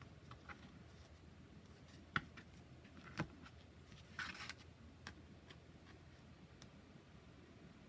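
Quiet handling of an oracle card deck and its cardboard box: scattered light clicks and taps, two sharper ones about two and three seconds in, and a brief rustle about four seconds in.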